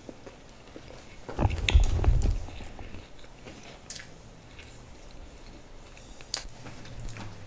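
Close-miked biting and chewing of a large sandwich: one loud, heavy bite about a second and a half in, lasting about a second, then quieter chewing with scattered mouth clicks.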